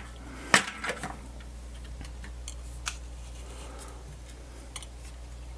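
A sharp click about half a second in, a smaller one just after, then a few faint scattered ticks of small parts being handled on a workbench, over a steady low hum.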